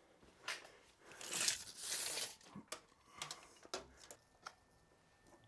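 A tape measure's blade is pulled out with a soft rasping swish, followed by scattered small clicks and taps as it is handled and held against the joists.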